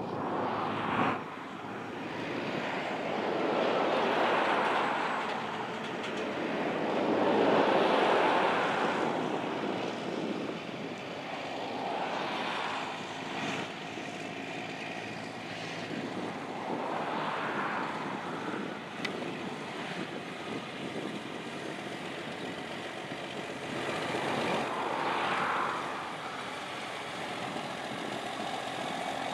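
Freightliner Argosy's 620 Cummins diesel running through an 8-inch straight-pipe single stack as the loaded truck drives slowly on gravel, its exhaust note rising and falling in several long swells.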